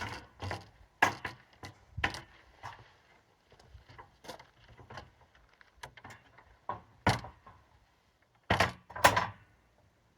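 Irregular knocks and thuds of a window unit being shifted and set into its wooden rough opening, with a louder pair of bumps near the end.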